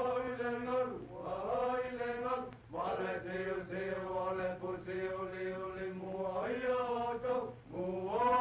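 Male voices chanting in long held phrases, breaking off briefly every second or two, with the narrow, muffled sound of an early-1930s optical film soundtrack.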